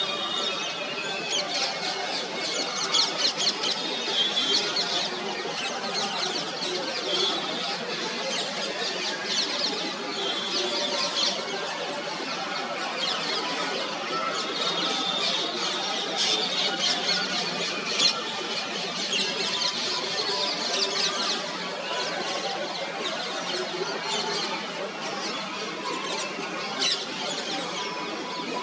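Small birds chirping and twittering continuously in a busy chorus of short, high-pitched calls, over a steady background din.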